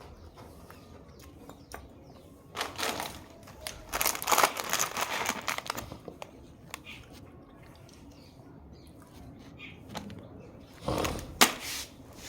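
Short bursts of crackly rustling and crunching from snacks (biscuits and namkeen) being handled and eaten. There are a few seconds in, a longer spell around four to five seconds, and another near the end.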